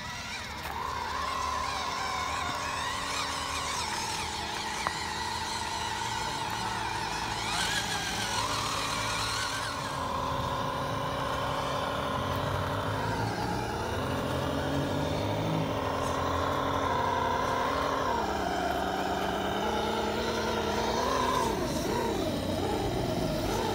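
Whine of small RC crawler trucks' electric motors and gearboxes as they climb over rock, the pitch stepping up and down again and again as the throttle is worked.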